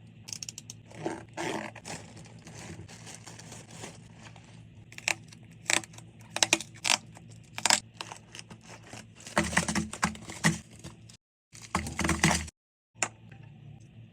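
Packaging being handled and opened: crinkling and tearing, with many sharp clicks and taps, and two abrupt cuts to silence late on.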